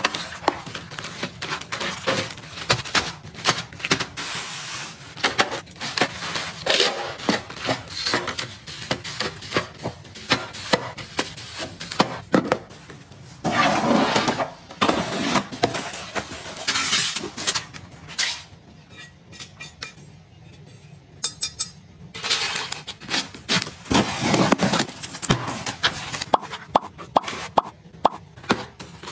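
Close-up handling sounds of unpacking: a cardboard box pulled open, then plastic-wrapped rolls of garbage bags rustling and being set into a plastic storage bin, with many small taps, clicks and scrapes. Quieter for a few seconds about two-thirds of the way through.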